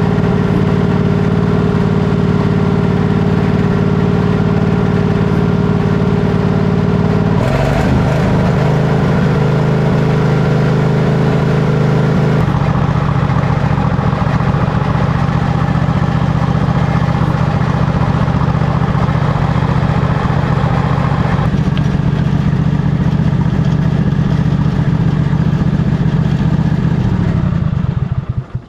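Craftsman GT3000 lawn tractor engine running at a steady speed, then winding down and stopping near the end.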